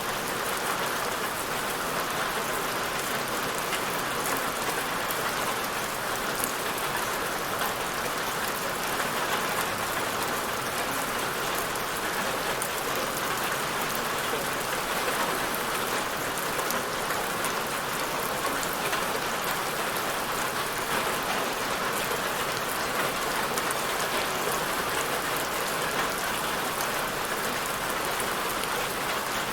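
Steady rain falling, an even hiss of many drops on a surface with fine individual drop ticks, unchanging throughout.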